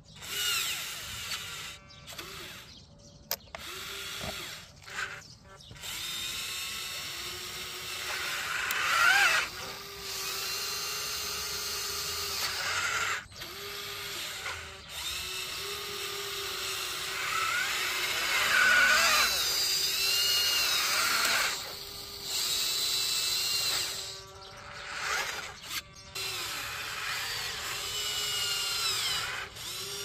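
Electric motors and gearboxes of a radio-controlled Huina construction model whining as it works. The whine starts and stops again and again with short pauses, its pitch rising and falling as the motors speed up and slow down.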